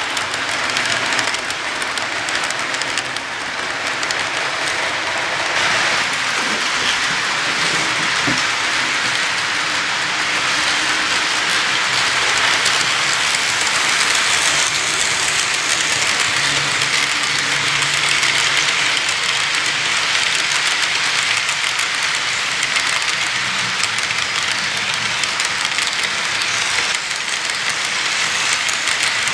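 Model freight train rolling past on track: a steady rattling hiss of the cars' wheels on the rails.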